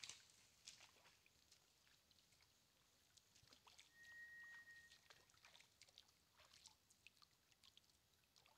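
Faint water splashing and dripping as a man wades barefoot through shallow stream water carrying a wet wire-mesh fish trap. A single steady high whistle sounds for about a second around the middle.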